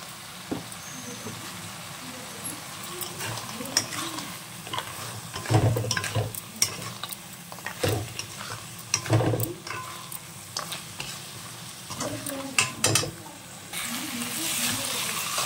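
Spatula stirring and scraping chopped ridge gourd and bari around a wok over a steady frying sizzle, with a few sharp scrapes and knocks of the spatula against the pan. The sizzle grows louder near the end.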